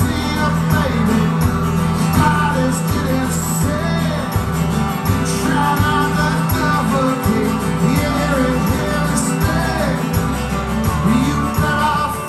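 Live acoustic rock song: steel-string acoustic guitar strummed with a man singing over it.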